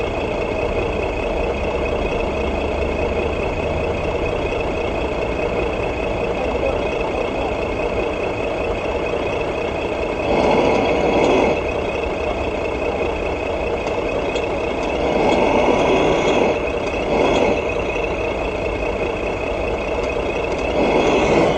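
GT Power RC sound unit playing a simulated truck engine idling steadily, revved in short bursts about halfway through, twice more a few seconds later, and again at the end.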